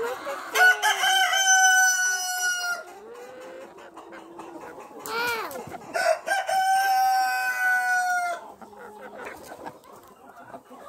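Roosters crowing twice, each crow held about two seconds, with hens clucking in between.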